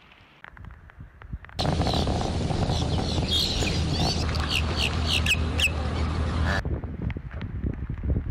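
Birds chirping, a series of short falling calls, over steady background noise with a low hum; the loud stretch starts abruptly about a second and a half in and ends abruptly near seven seconds, leaving duller noise and scattered clicks.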